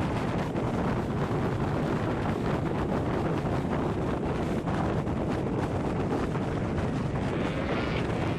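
Steady low rumble of wind buffeting the microphone, with the noise of a moving vehicle underneath.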